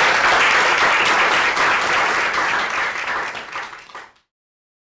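Audience applauding, dying down near the end and then cut off abruptly.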